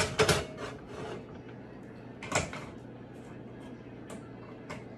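Kitchen clatter as things are handled: a quick run of knocks and rattles at the start, a single knock about two seconds in, then a couple of light clicks.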